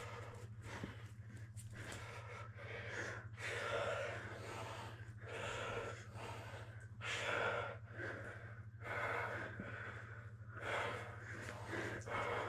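Heavy breathing of people grappling, hard breaths in and out roughly every second or two, over a steady low hum.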